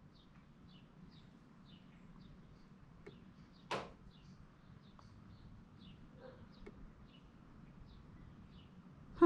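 A bird chirping faintly and steadily in the background: short falling chirps, about two a second. One sharp click about four seconds in.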